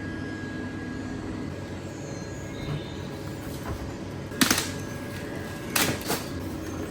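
Steady background hum with a faint steady tone, broken by short sudden knocks and rattles about four and a half seconds in and again around six seconds in, as a mystery-box package is handled.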